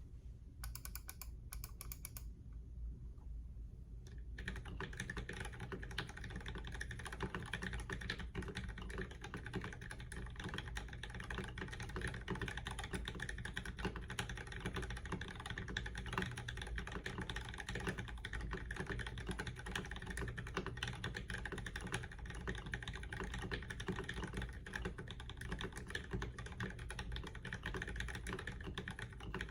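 Typing on an Idobao ID87 tenkeyless mechanical keyboard fitted with Durock V2 stabilizers. A few scattered keystrokes, then steady fast typing starts about four seconds in.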